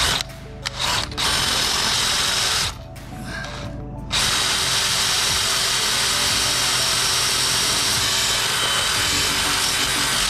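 A cordless DeWalt drill boring a hole through a wooden block with a long bit. There is a short run of drilling, a pause of about a second and a half, then a steady run of about six seconds.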